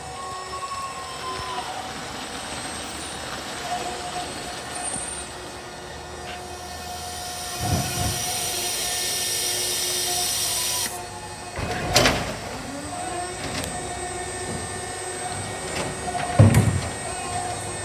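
Electric garbage truck moving slowly, its drive giving a steady whine that glides in pitch now and then. Midway a hiss of air builds for a few seconds and cuts off suddenly. Several thumps follow, two of them loud.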